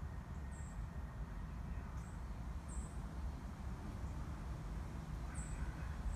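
Short, very high-pitched bird chirps, about five of them spaced irregularly, over a steady low rumble.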